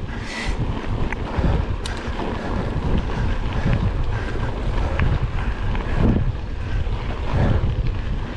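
Wind buffeting the microphone while riding a mountain bike at race speed, a gusting low rumble, with a few short sharp knocks from the bike.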